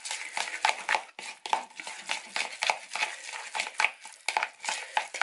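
A utensil stirring and mashing a moist, crumbly mixture of crumbled rice cakes and tomato paste in a bowl: a quick, irregular run of scrapes and clicks against the bowl.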